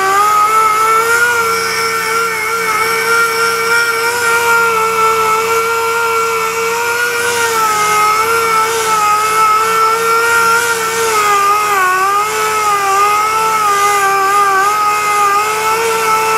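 Power sander running with 80-grit paper on a bumper cover repair: a steady whine whose pitch sags briefly as it is pressed harder, about twelve seconds in.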